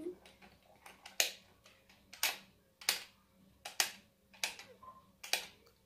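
Sharp plastic clicks from an L.O.L. Surprise Under Wraps toy capsule as its buttons and lock pieces are pressed and tried, about one click a second at an uneven pace.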